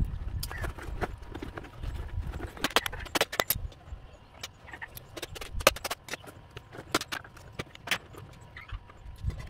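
Handling noise as a PVC pipe is worked off a bonsai's long soil-packed root: irregular clicks, taps and knocks of plastic and soil, over a low rumble.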